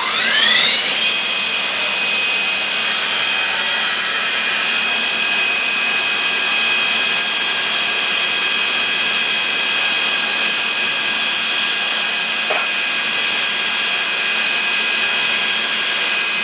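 Bridgeport Torq-Cut TC4G CNC mill spindle starting up: a whine rising in pitch for about a second, then holding as a steady high-pitched whine with the spindle running at about 2500 rpm.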